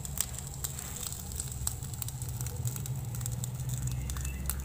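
An egg frying on a banana leaf in a hot wok without oil, the leaf and egg giving off irregular crackles and pops over a steady low hum.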